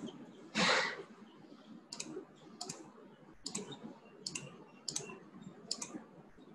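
Computer mouse button clicking about six times, spread over a few seconds, each click a quick press-and-release pair. About half a second in there is a single louder, longer scuffing noise.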